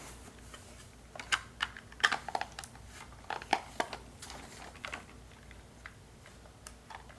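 Irregular small plastic clicks and taps from hands handling a toy RC truck and its rechargeable battery pack.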